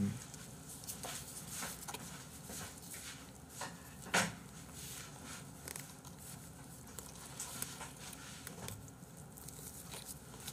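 Black disposable glove being pulled and worked onto a hand: faint rustling and small scattered clicks of the thin glove material, with one louder click about four seconds in.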